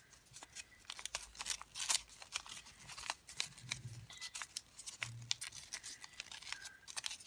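Folded colour-paper origami units rustling and crinkling as they are slid and tucked into one another, with many small irregular crackles.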